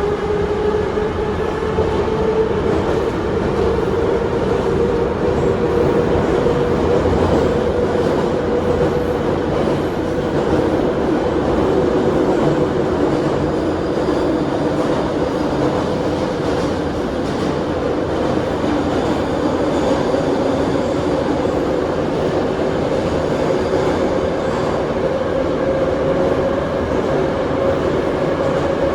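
Moscow Metro 81-717 subway train running, heard on board: a steady rumble of wheels on rail with the traction motor and gear whine slowly rising in pitch as the train gathers speed.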